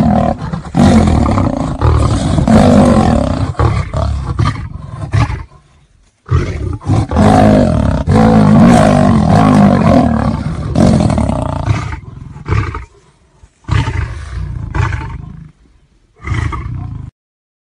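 Big cat roaring in two long bouts of about five and six seconds, then three shorter roars, the sounds of a lion–tiger fight.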